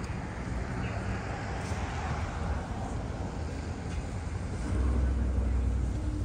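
City street traffic: a steady rumble of passing cars, with one vehicle growing louder as it passes about four and a half seconds in.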